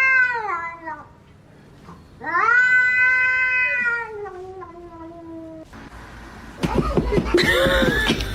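Domestic cat yowling in long, drawn-out calls: one call ends about a second in and a second one lasts about three seconds. Near the end comes a louder, rougher, wavering stretch of sound.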